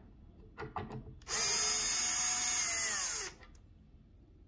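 Cordless drill/driver backing a Phillips-head screw out of wood: a few light clicks, then the drill runs at a steady whine for about two seconds and drops in pitch as it stops.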